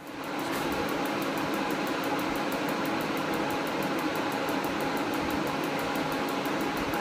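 Portable forced-air barn heater starting up: its fan and burner come on suddenly and settle within about half a second into a steady rushing noise, with a faint fast ticking running through it.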